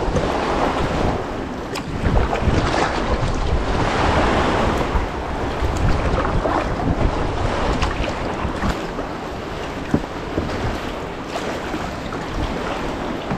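Wind buffeting the GoPro's microphone over the rush of sea water around a kayak, swelling and easing, with a few short sharp splashes.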